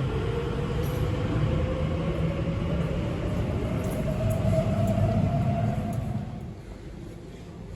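Elizabeth line Class 345 electric train pulling away: a heavy rumble with a traction-motor whine rising slowly in pitch as it accelerates. The sound falls away sharply about six and a half seconds in.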